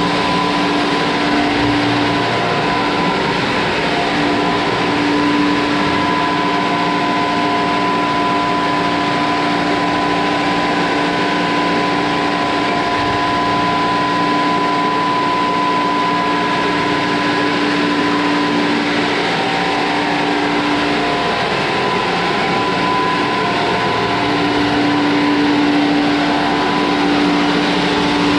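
Sawmill machinery running loudly and steadily: a continuous mechanical drone with a steady low hum and a higher whine. The hum drops out briefly a few times.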